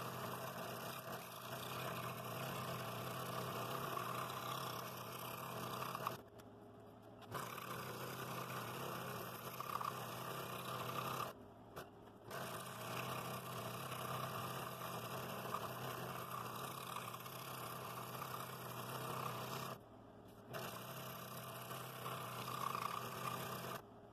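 Scroll saw running with a fine No. 3 blade, cutting soft wood along a pattern line with a steady hum and hiss. The sound cuts out briefly three times and comes straight back.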